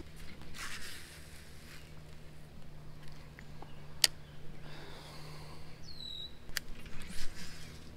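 Quiet outdoor background at a pond bank with a faint steady low hum and soft rustling. A few sharp clicks from a baitcasting reel and rod being handled, and a short falling chirp about six seconds in.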